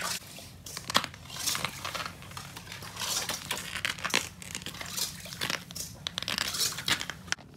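Irregular rustling and crinkling of the nylon fabric of a pop-up ice-fishing shelter, close to the microphone.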